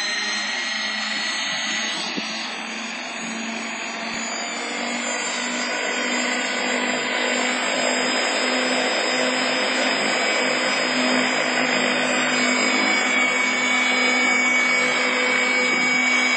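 Eagle 3 EP electric RC model running: a steady mechanical whine with a high tone that slowly rises in pitch as the sound grows louder. It carries the abnormal noise from the airframe that the owner is investigating and has not yet cured.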